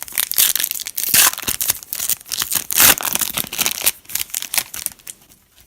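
A trading-card pack wrapper being torn open and crinkled by hand: a dense, irregular crackle of tearing and crumpling, loudest about a second in and again near three seconds, dying away near the end.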